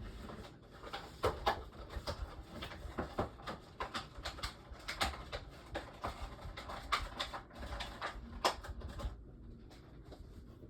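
Irregular clicks, taps and knocks of hands handling D-cell batteries and a small plastic fan's battery compartment, thinning out near the end.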